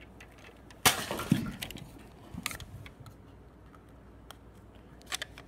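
Handling noise from a toy Nerf blaster and the phone filming it: one sharp knock about a second in, then a few lighter clicks and rustles.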